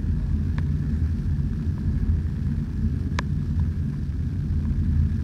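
A steady low rumble, with a faint tick about three seconds in.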